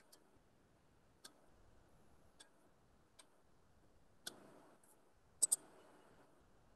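Faint clicks of a computer mouse, single clicks about a second apart, then a quick double click near the end, the loudest.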